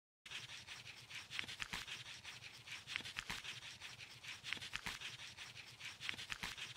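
Scratchy scribbling of a pen writing on paper, a run of quick strokes and small taps, as a handwriting sound effect. It starts a moment in and cuts off suddenly at the end.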